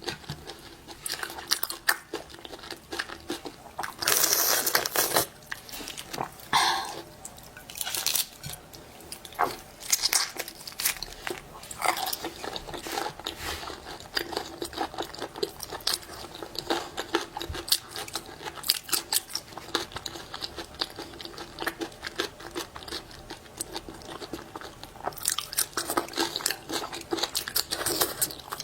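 Close-miked eating: crunchy bites and chewing, with sharp crackling crunches throughout and denser, louder clusters about four seconds in and again near the end.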